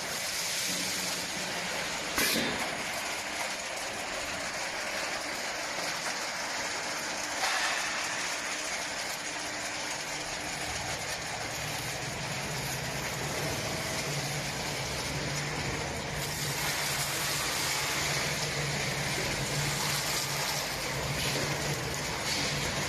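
Snack frying, de-oiling and seasoning line machinery running: a steady mechanical hiss and rattle with two sharp knocks in the first part. A low motor hum joins about halfway through.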